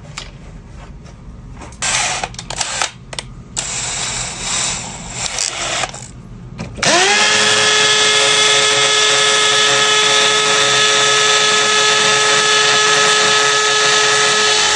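Power drill spinning up sharply about seven seconds in and running at a steady high speed for about eight seconds, drilling into brick. Before it, irregular knocks and clatter of the drill being handled.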